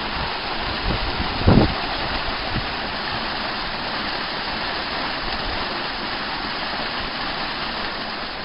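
Water from a spring-fed stream cascading over a small moss-covered weir: a steady, even rushing. About a second and a half in, a brief low thump, like wind buffeting the microphone.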